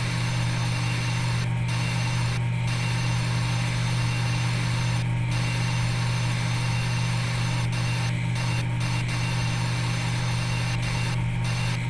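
Steady low machine hum with a hiss above it: the simulated spindle and cutting sound of a CNC milling simulator. The hiss drops out briefly about six times.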